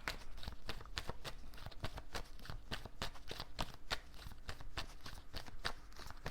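Cards being handled on a table: a run of light, irregular clicks and flicks, several a second.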